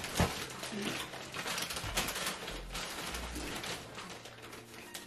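A crinkly plastic snack bag rustling as a hand reaches into it, with irregular crackling and crunching of Takis rolled tortilla chips. The sharpest crackle comes just after the start.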